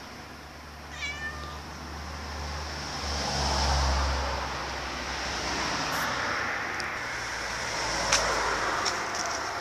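Road traffic: cars passing on the street, the sound swelling and fading twice. A short run of quick falling chirps comes about a second in, and a sharp click near the end.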